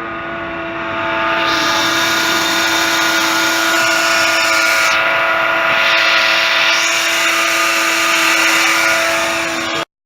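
Ford Ikon's 1.6-litre petrol engine running, with a steady whine laid over the engine noise, the squeal that the repair was meant to stop. It grows louder after about a second and a half, then holds steady.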